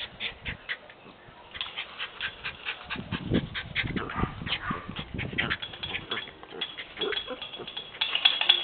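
Small dogs whimpering and yipping in many short sounds in quick succession, louder near the end: a puppy and its mother kept apart by a wire fence, wanting to reach each other.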